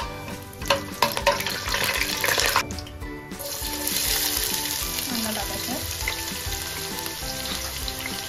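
Whole spices sizzling in hot fat in a kadai, with a metal ladle clicking against the pan as they are stirred. About three seconds in, chopped onions are tipped into the hot fat and set off a louder, steady sizzle of frying.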